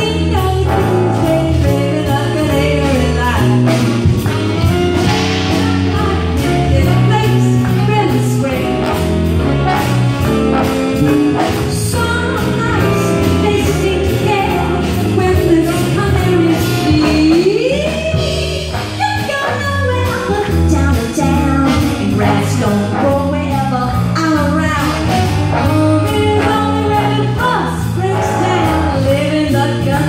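A live big band playing jazz, with saxophones, trombones, trumpets, keyboard and drums, and a woman singing into a microphone over it.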